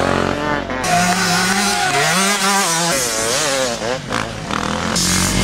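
Dirt bike engines revving, the pitch climbing and dropping again and again as the throttle is worked. The sound changes abruptly about a second in and again near the end.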